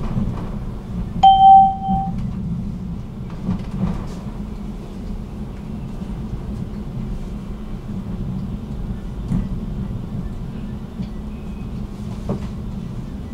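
A tram running on its rails, heard from inside the car: a steady low rumble with a few faint knocks. About a second in, a single electronic beep sounds for just under a second.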